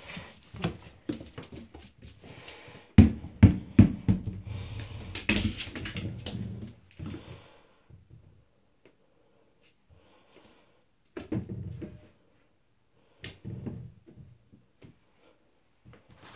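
Dogue de Bordeaux puppy scrambling after a rubber ball on a vinyl floor: paws and claws scuffing and clicking, the ball knocking and bouncing against cabinets and bowls. A dense flurry of knocks and thumps comes about three to seven seconds in, then a few single knocks with quiet gaps between.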